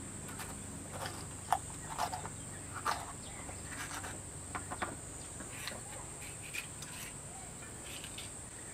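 A kitchen knife cutting through a green bell pepper by hand: a few short, crisp cuts, the sharpest about a second and a half in, over a steady high-pitched drone of insects.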